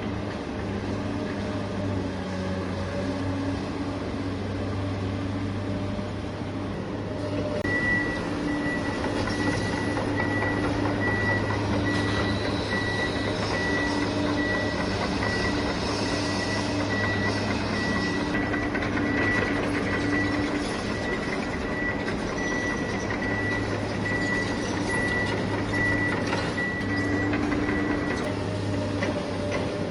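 Radio-controlled construction machine running with a steady motor hum, and a reversing beeper sounding about twice a second for some twenty seconds from about eight seconds in.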